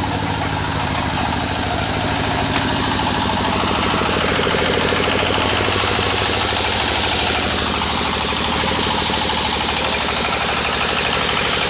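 Chainsaw's small engine running steadily, with a fast, even firing pulse.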